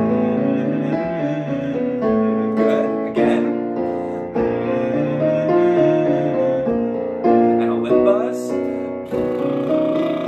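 Electronic keyboard in a piano voice playing a vocal warm-up pattern, a new chord struck about every two seconds, with a man humming the pattern along with it.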